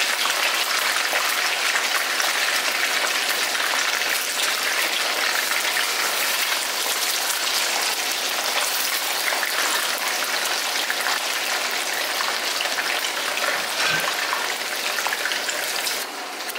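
Croaker fish deep-frying in hot oil in a wok, a steady dense crackling sizzle.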